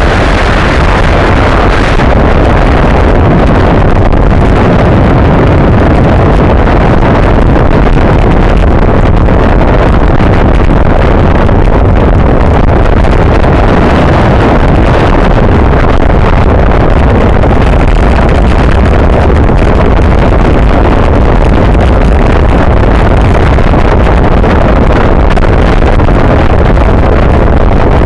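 Wind rushing over the microphone of a bicycle-mounted camera while riding at race speed, a loud, steady roar of noise with the bike's tyre and road hum underneath.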